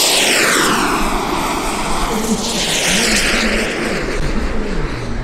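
Radio-controlled model aircraft making a fast pass, its engine note sweeping down in pitch as it goes by. About two and a half seconds in, the note climbs again as it comes round and passes once more.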